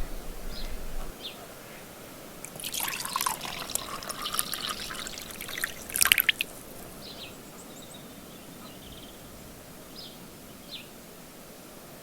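Water pouring or trickling for about four seconds, starting a few seconds in and ending with a brief louder splash.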